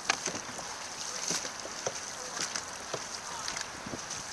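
Dragon boat paddles catching and splashing in the water in a quick, uneven rhythm of about two strokes a second, over a steady hiss of water and wind.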